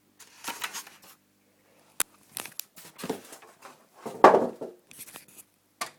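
A plastic airsoft shotgun being handled: a run of rustling, scraping noises with a sharp click about two seconds in and the loudest scrape just after four seconds.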